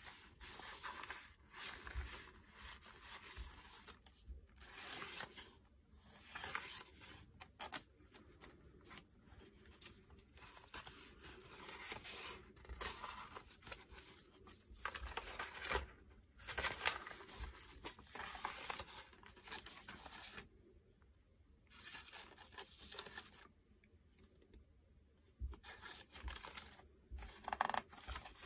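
Paper rustling as the pages, tags and tucked cards of a handmade paper journal are turned and handled, in irregular bursts with two short pauses in the second half.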